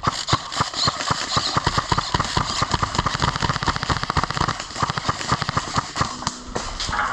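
Airsoft guns firing in rapid bursts: a dense, uneven rattle of sharp clicks and pops.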